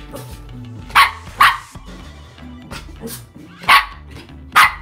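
Dog barking four times, loud and sharp, in two pairs about half a second to a second apart, over background music.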